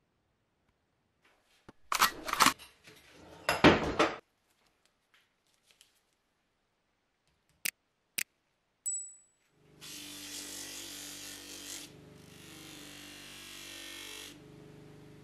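A few loud knocks and rattles, then two sharp clicks, then a bench grinder with polishing wheels runs with a steady hum and hiss while a small metal bottle is held against the wheel.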